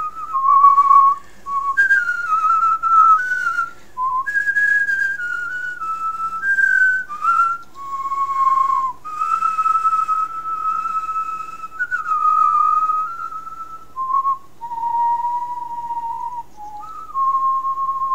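A person whistling a slow tune: clear single notes, some held for a second or more, stepping up and down with small slides between them.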